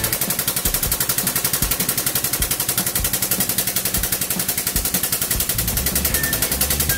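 Hydraulic press pump running with a fast, even, machine-like pulsing while the ram presses down under load.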